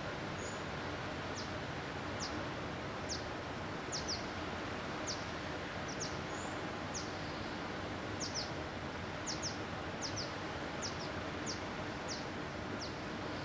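A small bird repeating short, high, downward-slurred call notes, about one or two a second and sometimes in pairs, over a steady background hiss.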